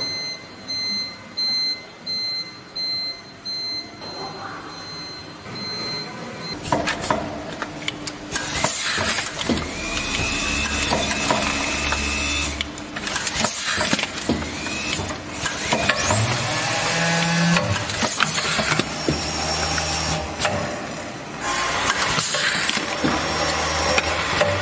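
Rotary spout-pouch filling and capping machine running. At first there is a steady high whine with regular pulses. Then comes a busy mix of sharp clicks, knocks and short hisses over a low motor hum.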